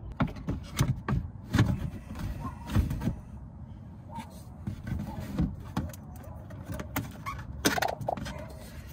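Irregular knocks and clicks of a plastic wheel-well splash shield and push-rivet trim clips being handled, over a steady low rumble.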